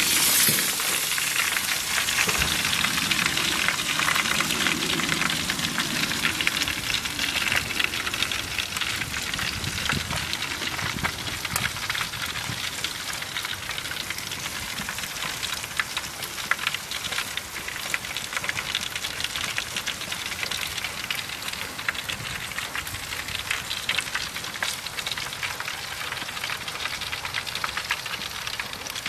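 Food sizzling and crackling in hot oil in a frying pan. It starts suddenly, is loudest for the first few seconds, then settles into a steady sizzle.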